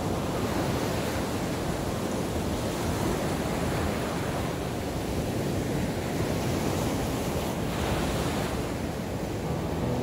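Ocean surf breaking and washing up a sandy beach: a steady rush of waves that swells and eases gently.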